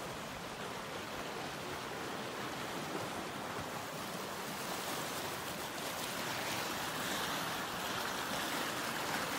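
Small spring-runoff stream flowing steadily, a little louder in the second half.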